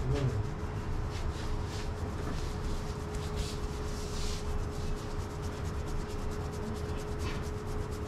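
Fingers rapidly rubbing and scrunching oiled hair against the scalp in an Indian head massage, a quick run of rasping strokes that grow louder a few seconds in. A steady hum runs underneath.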